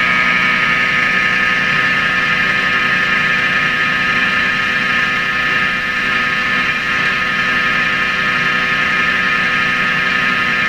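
Nordmende Globetraveler III radio's speaker giving a loud, steady rushing static with several steady whining tones through it, and no station voice coming through.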